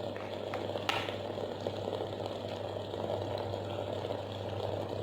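Water boiling steadily inside an electric steam inhaler, giving off steam, over a low steady hum, with one faint click about a second in.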